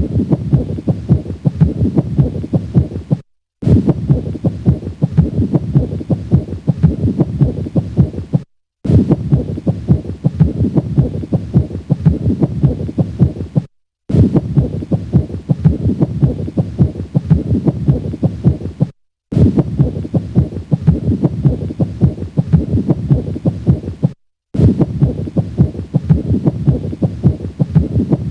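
Heart sounds heard through a stethoscope at the cardiac apex, with a pericardial friction rub over the heartbeat: the sign of an inflamed pericardium rubbing against the heart. The short recording repeats, with a brief silent break about every five seconds.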